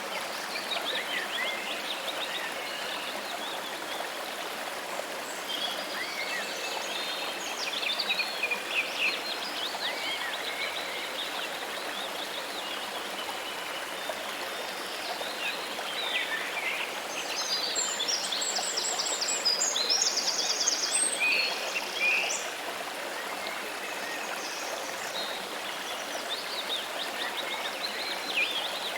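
Steady rush of running water, with several birds chirping and singing over it. Near the middle comes a burst of rapid, high trilling.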